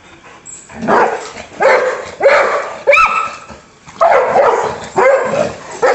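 Dog barking repeatedly: about eight short, loud barks less than a second apart, with a brief pause a little past the middle.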